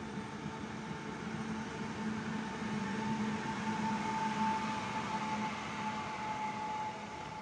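Koleje Dolnośląskie electric multiple unit moving slowly past along the platform, its traction equipment giving a steady hum and whine over the running noise, which swells to a peak about halfway and then eases off.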